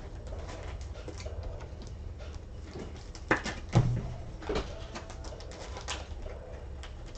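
Trading cards and packs being handled on a table: soft clicks and rustles, with two louder knocks about three and a half seconds in, over a steady low hum.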